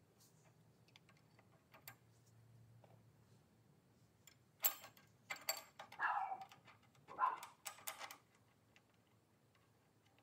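Small metal engine parts clicking and clinking together as a Predator 420's crankshaft and connecting rod are fitted by hand inside the open crankcase. Faint scattered ticks, then a cluster of sharp clinks and short scrapes about halfway through.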